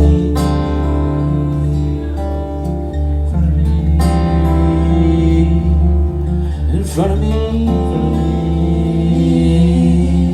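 Live acoustic guitar music, an instrumental passage with a steady low beat about twice a second and a quick sliding note about two-thirds of the way through.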